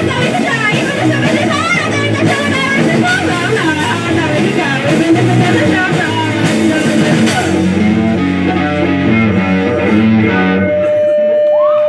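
A rock band playing live, with electric guitar and vocals. Near the end the playing thins to held notes, and a steady tone with sliding pitches comes in.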